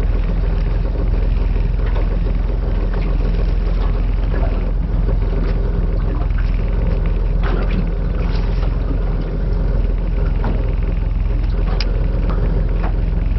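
Honda outboard motor idling steadily, a low even engine rhythm with a light haze of water and wind noise over it.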